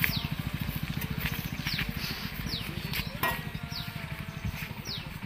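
A motorcycle engine running with an even, rapid pulse, fading as the bike rides away on a dirt track. A bird's short, falling whistles repeat about once a second over it.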